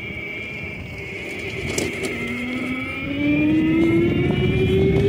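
Go-kart motor running while the kart drives along, its pitch rising steadily from about two seconds in and getting louder about a second later as the kart speeds up.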